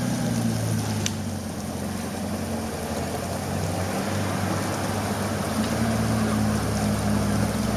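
A vehicle engine running steadily as a low hum under a wash of noise. It eases off in the middle and picks up again about two-thirds of the way through, while the off-road Lada Niva sits stuck deep in a pond.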